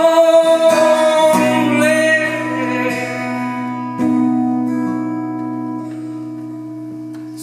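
A male voice holds one long sung note over steel-string acoustic guitar chords. The note fades after about three seconds, and a chord is strummed again about four seconds in and left to ring and die away.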